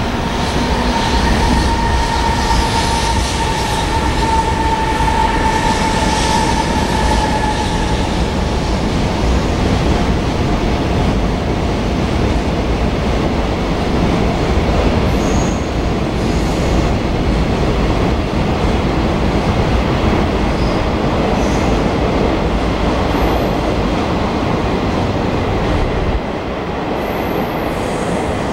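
Electric-hauled freight train running past over the rails, a steady heavy rumble of the wagons' wheels. There is a whine in the first eight seconds and a few short high wheel squeals later on.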